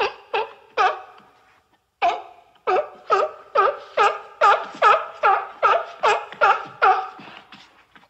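Sea lion barking: three barks, a pause of about a second, then a fast, steady run of barks at about three a second.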